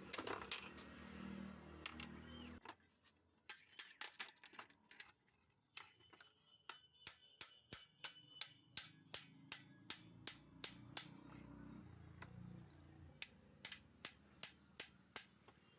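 A low hum that cuts off suddenly about two and a half seconds in, then a long series of faint, sharp clicks, roughly one or two a second.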